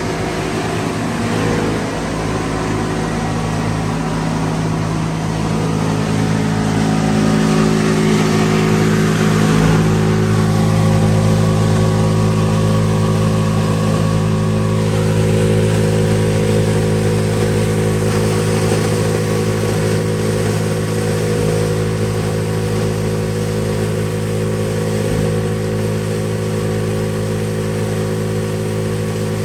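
Heavy-duty plastic film crusher running under load as PE/PP film is fed in and wet-crushed: a loud, steady drone with grinding, churning noise. The drone grows stronger about ten seconds in.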